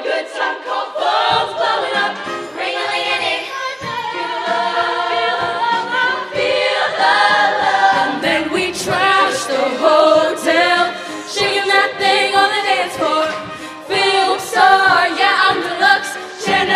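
Show choir singing in harmony, many voices at once with wavering pitches.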